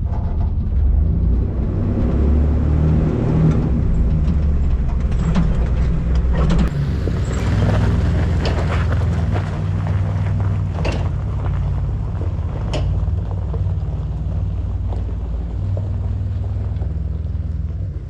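Willys Jeep engine running as the vehicle drives over rough ground, a steady low rumble with a few sharp knocks from about five seconds in.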